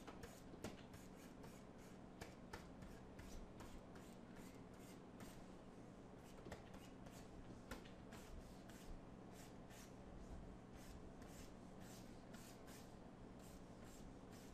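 Faint scratching and tapping of a pen stylus on a graphics tablet: many short strokes of painting over a low steady hum.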